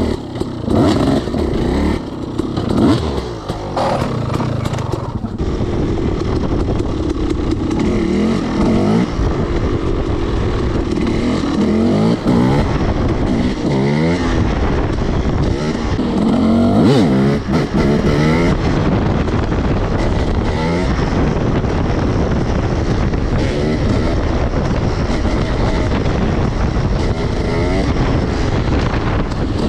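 300 cc two-stroke dirt bike engine under way, its pitch rising and falling again and again as the throttle is opened and closed.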